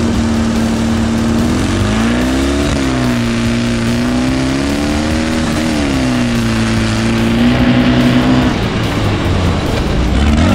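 Sand rail engine running hard in a drag race, its pitch climbing and then dropping at a gear change about two and a half seconds in and again about six seconds in, over a steady rush of wind noise.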